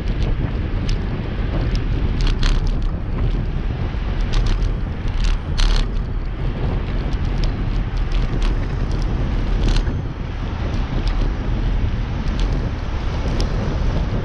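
Wind buffeting the microphone of a camera riding on a moving bicycle, a steady low rumble, with frequent sharp clicks and rattles from the bike and road, the loudest a little after two seconds, around five and a half seconds and near ten seconds.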